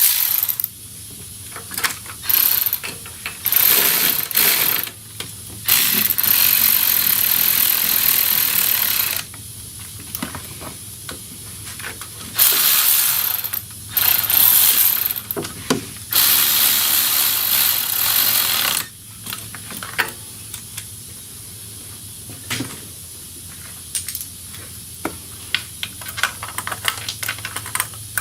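Ratchet wrench working fasteners in repeated runs of one to three seconds, with scattered tool clicks and knocks in between.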